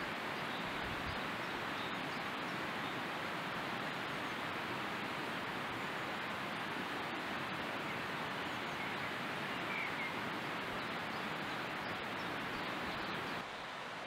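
Steady, even rushing of a small mountain river, which dips slightly shortly before the end.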